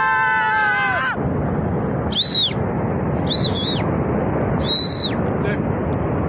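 Steady rushing noise of a landslide, with rock and debris pouring down a gorge. A person's long, held shout ends about a second in, then three short, high whistles, each rising and falling in pitch.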